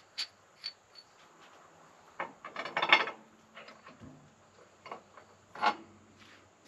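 Scattered metallic clicks and scraping of bolts and hardware being handled and fitted at a truck engine mount. The loudest part is a rasping scrape about three seconds in, and there is a sharp clank near the end.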